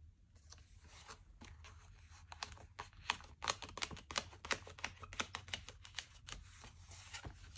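Pages of a disc-bound paper planner being turned and handled: an irregular run of small clicks and paper rustles as a cardstock-backed sheet is lifted and moved on the plastic discs, busiest in the middle.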